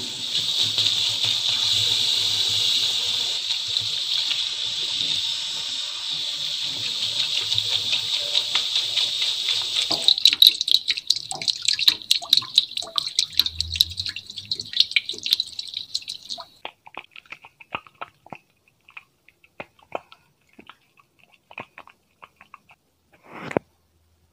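Water running in a steady hiss, like a shower rinse, turning spattery about ten seconds in. It stops at about sixteen seconds, leaving scattered drips.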